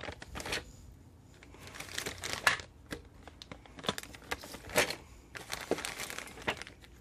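Clear plastic bags holding a robot arm kit's plastic parts crinkling as they are handled and moved, in irregular rustles with short pauses.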